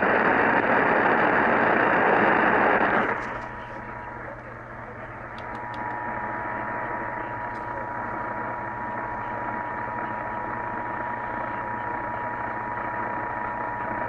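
AM radio static from a SPARC portable radio tuned to an AM station: a loud hiss for the first three seconds, then a quieter steady hiss with a faint steady whistle from about five seconds in.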